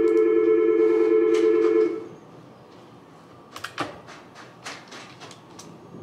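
Office desk telephone ringing: a loud, fast-warbling electronic ring that lasts about two seconds and then stops. A few sharp clicks follow a little past the middle.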